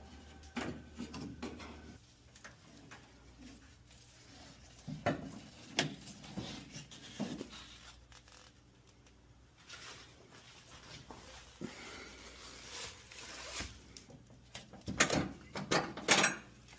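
Scattered handling noises: sharp clicks and light knocks with rustling between them, the loudest cluster near the end.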